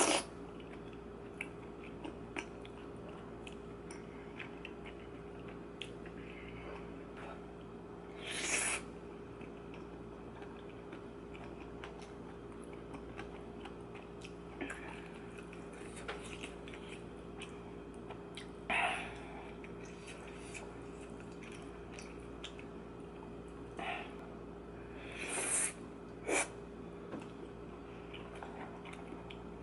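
Close-miked eating of spicy tteokbokki (chewy rice cakes in sauce): soft chewing throughout, with about five louder, brief mouth sounds spread across it. A steady low hum runs underneath.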